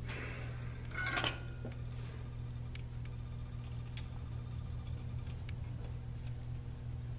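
Rustling and small metallic clicks of hands handling wires and parts inside the metal chassis of a Drake AC-4 power supply, loudest about a second in, then sparse faint ticks, over a steady low hum.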